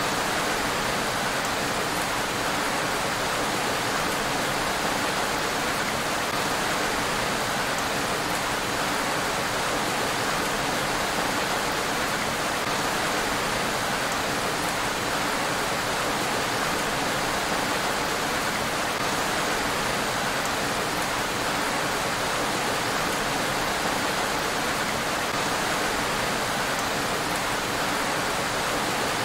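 Steady rain falling on a road: an even, unbroken hiss.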